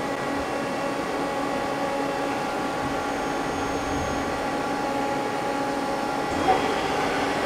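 Steady machine hum of a Mazak CNC lathe standing by, a constant drone with several faint steady tones in it.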